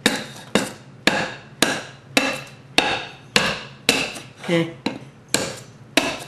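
Ka-Bar knife blade chopping repeatedly into the edge of a wooden 2x4, about two sharp whacks a second, testing the freshly reprofiled edge.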